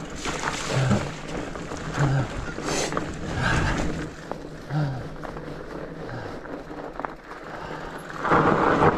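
Rigid fat bike rolling down a dirt and rock trail: wide tyres crunching over the ground with scattered clicks and rattles, and wind on the microphone. The noise gets much louder about eight seconds in as the bike picks up speed.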